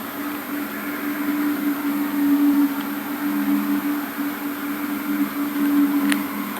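Low, steady droning hum of two held tones, the kind of mysterious 'sky trumpet' noise of unknown source, with one short click near the end.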